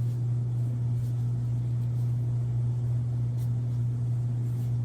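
A steady low hum that holds the same pitch and level throughout.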